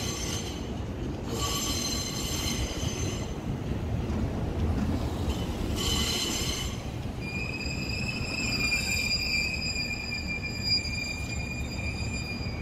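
JR Kyushu 787 series electric train rolling slowly past with a low rumble, its wheels squealing against the rails. The squeal comes in short high-pitched bursts at first, then holds as one long steady squeal from about seven seconds in.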